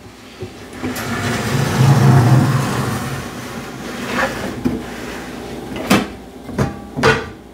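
Cookware clattering as a large nonstick skillet is pulled from a low cupboard. The skillet is then set down and shifted on a portable countertop burner, with a few sharp metal knocks.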